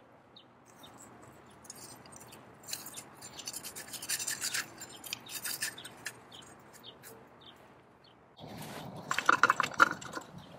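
Coal fire crackling in a cast-iron forge's firepot as steel tongs shift a piece of steel in the coals. About eight seconds in, a sudden run of rapid metal scraping and clicking starts, the loudest part, as a cast-iron part is handled and fitted under the forge.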